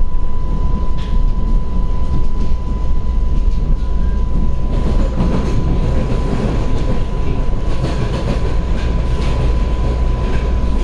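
TTC subway train running on rails: a steady low rumble with scattered clicks of wheels over rail joints, and a steady high tone alongside. It grows a little louder about five seconds in.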